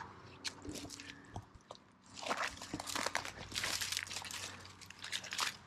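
Footsteps crunching through dry pine needles and low brush. Scattered light crackles at first, then louder, repeated crunching from about two seconds in.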